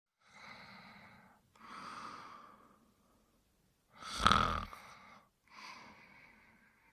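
Cartoon dog character snoring in his sleep: a run of four breathy snores. The third, about four seconds in, is the loudest and deepest.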